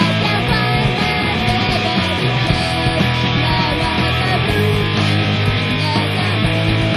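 A melodic pop-punk band's recorded song playing loud and steady, with electric guitars, bass and drums, off a 1995 demo cassette.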